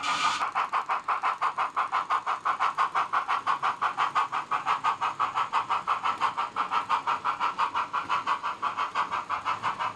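OO gauge model steam locomotive's chuffing sound, a steady, even beat of about seven chuffs a second.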